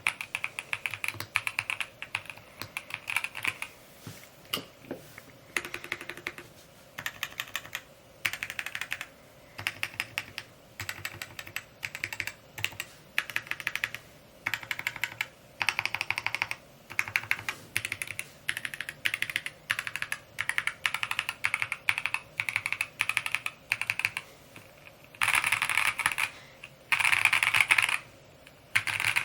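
Typing on a Mode Encore 2 custom mechanical keyboard: quick runs of keystrokes broken by short pauses, the runs getting louder and denser near the end.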